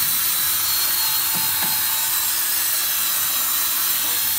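Cordless drill spinning an abrasive cleaning wheel against the rusty hub mounting face of a large cast-iron brake rotor: a steady grinding hiss over the drill motor's hum. The hub face is being cleaned so the rotor sits straight and true on the brake lathe and gives a good clamping surface.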